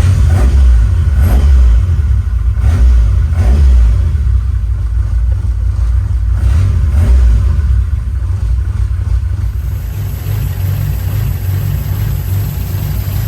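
Toyota AE86's 4A-GE four-cylinder engine on individual throttle bodies, just started and running, revved with several short throttle blips in the first half, then settling into a steadier, slightly quieter idle.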